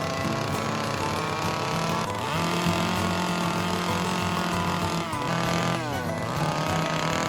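Small two-stroke carving chainsaw running under load, its pitch rising and falling several times as the throttle is worked while it cuts into the wood.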